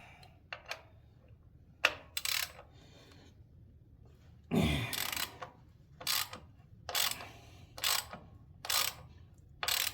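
Ratchet wrench clicking in short rasping strokes, about one a second, as factory-tight bolts are backed out of a Harley-Davidson, with a few separate clicks and a knock earlier.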